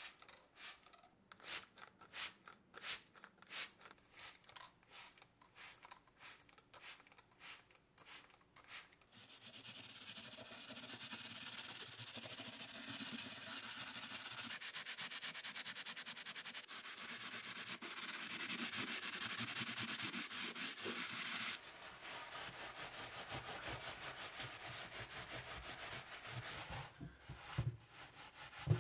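A trigger spray bottle squirting liquid onto a rusty cast-iron sign, about two squirts a second for the first nine seconds. Then steady scrubbing of the wet cast iron with a hand scrubber for about twenty seconds, and a paper towel rubbing over it near the end.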